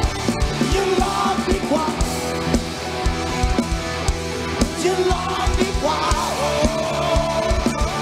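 Live rock band playing: electric guitars, bass guitar and a drum kit hitting steadily, with a male singer's voice over them.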